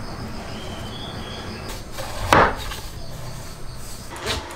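A few knocks of wood on wood as plywood blocks are handled and clamped on a workbench, the loudest a short sharp knock a little past two seconds in, over a steady low hum.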